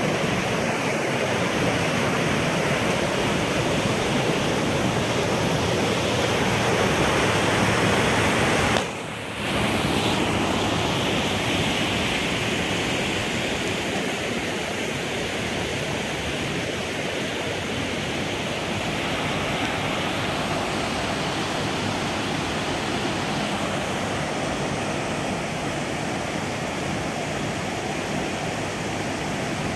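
Fast mountain creek rushing over rocks through a narrow rock gorge: a steady, even roar of whitewater. The sound drops out briefly about nine seconds in.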